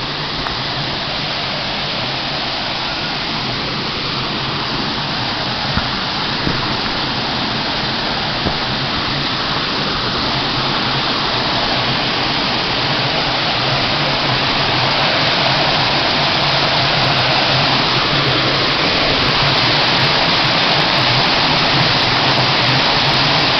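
Small waterfall pouring and splashing into a pool: a steady rush of water that grows gradually louder.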